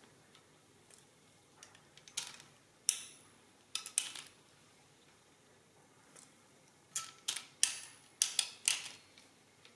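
Crank of an EOS mechanical calculator, an oscillating tooth-segment machine, being turned by hand. Its mechanism gives sharp mechanical clicks and clacks: a few spaced ones between about two and four seconds in, then a quicker cluster near the end.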